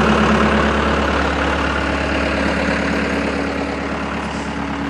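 Caterpillar 287B track skid steer's diesel engine idling steadily.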